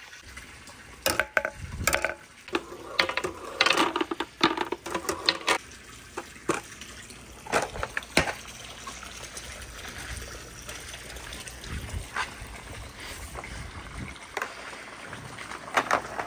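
Marbles clicking and knocking as they roll down a wooden marble run, in irregular clusters of sharp clacks, over a steady sound of running water.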